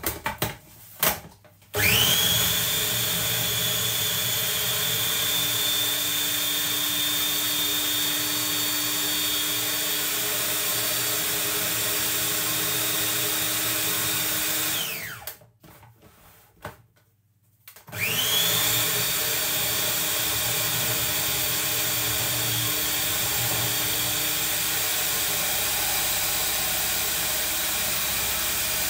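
Electric food processor motor whirring as it mixes ginger biscuit dough, run twice. A few clicks come first, then about two seconds in the motor starts with a rising whine and runs steadily. About fifteen seconds in it winds down with a falling whine, and after a short pause it starts again and keeps running.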